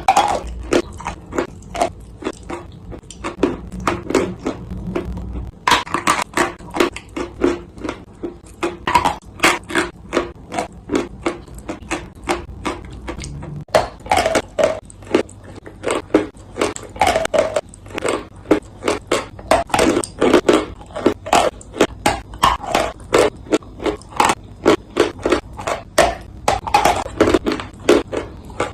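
Dry clay being bitten and chewed close up: a steady run of sharp crunches, about two or three a second, getting louder and brighter about six seconds in.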